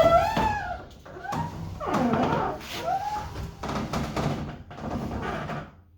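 Garage door being pulled shut by hand with its opener disengaged: the door squeals with gliding pitches and rumbles along its tracks, then stops abruptly just before the end as it reaches the closed position.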